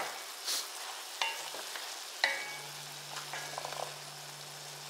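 Carrots, broccoli and seafood sizzling in a little sauce in an enamelled pot as a wooden spatula stirs them, with a few short ringing knocks of the spatula against the pot. A low steady hum comes in about halfway through.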